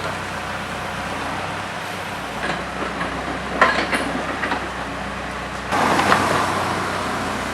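Engine of heavy machinery running steadily, with a few sharp knocks in the middle and a louder surge of noise about six seconds in.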